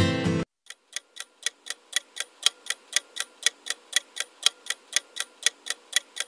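Ticking-clock countdown timer sound effect, even ticks about four a second. Electronic dance-pop music cuts off abruptly about half a second in, just before the ticking starts.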